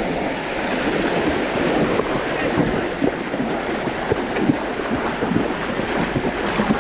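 Water splashing steadily as mountain bikes and riders wade through a shallow stream crossing, with wheels and feet churning the water in many small splashes.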